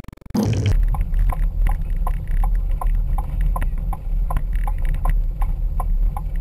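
Ford Windstar minivan driving on a dirt road, heard from inside the cabin: a steady low rumble of road and engine, with even ticking about three to four times a second.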